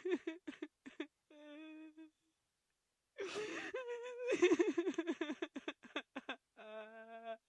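A woman crying: short shaky sobs and a held whimper, a pause of about a second, then a long wavering wail broken by catching sobs, ending in a drawn-out high whimper.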